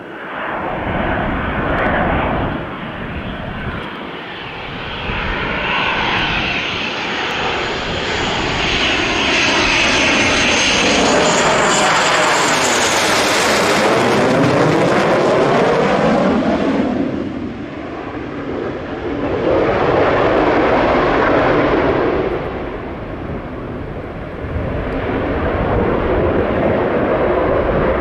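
Twin F404 turbofans of a USMC legacy F/A-18 Hornet on landing approach: the jet noise builds with a high whine as it nears and peaks as it passes low overhead about halfway through. It then swells and eases twice as the jet heads on to the runway.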